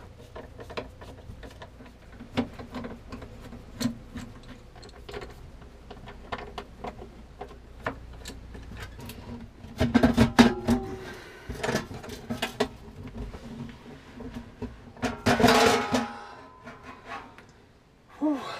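Small metallic clicks and scrapes from a screwdriver backing out the screws that hold a stainless steel galley sink. About ten seconds in, and again around fifteen to sixteen seconds, the sink clatters with the dishes inside it and rings briefly as it is pried loose and lifted.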